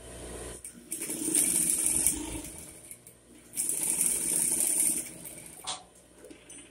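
Sewing machine stitching patchwork fabric pieces together in two runs of about a second and a half each, with a short pause between. A single click follows near the end.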